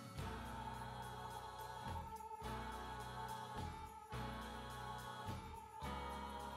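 Background music of slow, sustained chords that change about every two seconds.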